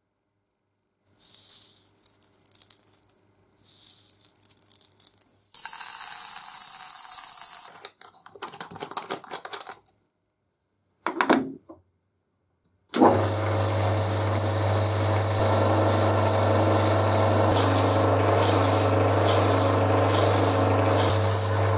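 Small tumbling-media pellets rattling as they go into a small metal oil can, in several short bursts. Then, about thirteen seconds in, a metal lathe starts running steadily with a low hum. It spins the taped-shut can in its chuck, and the media tumbles and rattles inside to scour the interior.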